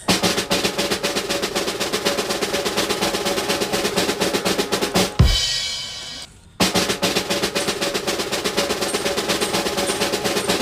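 Snare drum roll lasting about five seconds, ending in a single crash hit with a deep boom that dies away; after a short pause a second drum roll starts and runs on.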